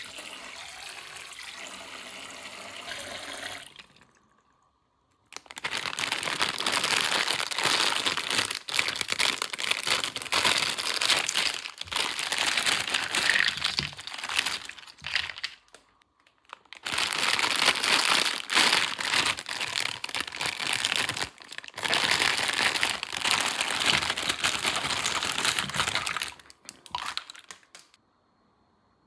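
Steady running water for the first few seconds, then plastic packaging crinkling and crackling as a toy set is unboxed, in long stretches broken by two short pauses.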